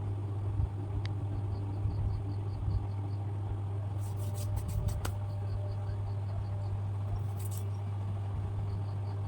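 A steady low hum, with faint high chirps that come in short quick runs every few seconds and a few brief rustles about four and seven seconds in.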